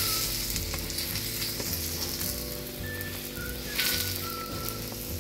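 Aloo paratha sizzling in oil on a hot flat tawa, just turned over onto its freshly oiled side. The sizzle swells at the start and again near the end.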